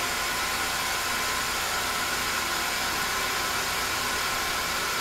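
Mazak CNC lathe running a live-tool end mill that circle-mills the inside of a steel tube, continuing the cut at the next depth: a steady machine hum and hiss with faint high whining tones.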